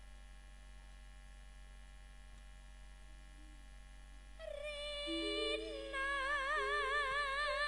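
After a few seconds with only a faint steady hum, a woman starts singing about four seconds in, holding long notes with a wide, even vibrato in the style of a campursari singer, amplified through the PA. Steady keyboard notes that step from one pitch to another sound underneath.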